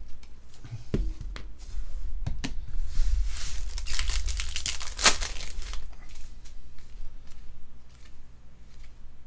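Shiny foil wrapper of a baseball trading-card pack being torn open and crinkled in the hands, with a few sharp crackles early and the densest crinkling about three to six seconds in, then quieter rustling as the cards are handled.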